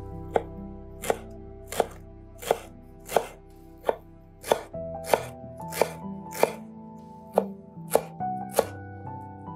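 Kitchen knife chopping fresh dill on a wooden cutting board: about thirteen sharp knocks of the blade on the board at a steady pace, roughly one every two-thirds of a second. Soft background music runs underneath.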